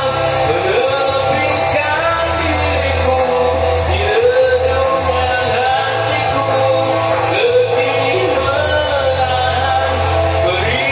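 A man singing into a corded karaoke microphone over a backing track, his voice gliding through long held phrases above a steady bass line.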